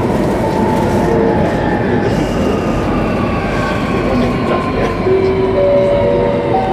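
Singapore MRT electric train heard from inside the car, running on the rails with a steady rumble. Several thin motor whines glide slowly down in pitch as the train brakes into a station.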